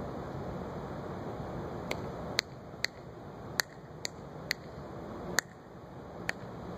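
About eight sharp finger snaps, irregularly spaced roughly half a second apart, starting about two seconds in, over a steady background hiss.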